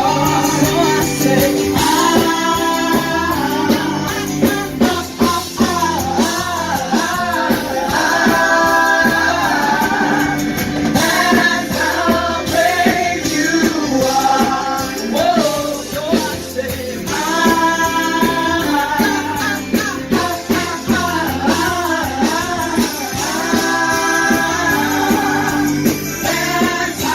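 Live worship music: a church worship team singing, led by a female voice with others joining, over a full band accompaniment, with tambourine.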